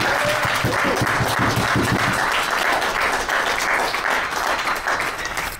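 Audience clapping, with a few shouts in the first two seconds; the applause dies away near the end.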